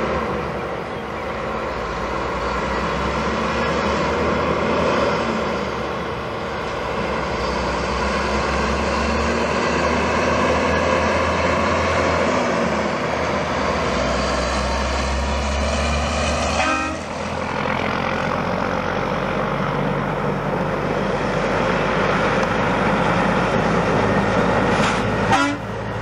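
Diesel engine of a semi truck running steadily as it pulls a combine on a trailer down the highway, its pitch shifting a few times.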